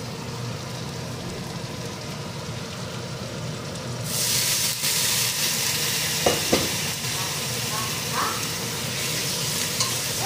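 Onion and spice masala frying in oil in a kadai, stirred with a spatula; about four seconds in, water hits the hot pan and the sizzle jumps to a loud, bright hiss. Two short knocks of the spatula on the pan follow a couple of seconds later.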